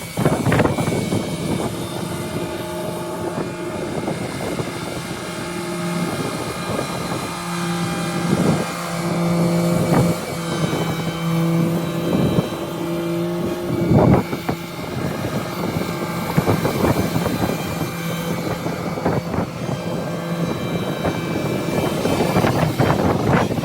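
Tractor engine running steadily, with a few sharp knocks now and then, the loudest about halfway through.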